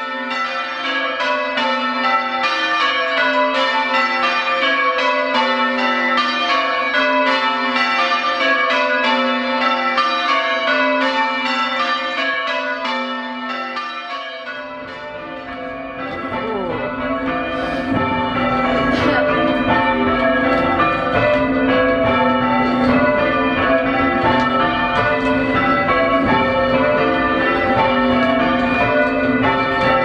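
A ring of five church bells, tenor in A, being change-rung: an even, continuous rhythm of bell strokes. Halfway through, the bells go from being heard outside the tower to being heard inside the ringing chamber, where a low rustling noise joins beneath them.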